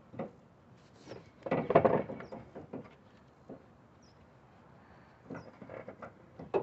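Knocks and scrapes of a replacement A/C compressor being worked down into a crowded engine bay, its metal body bumping and rubbing against engine parts and hoses. The loudest stretch of scraping and rattling comes about one and a half to two seconds in, with a few lighter knocks later.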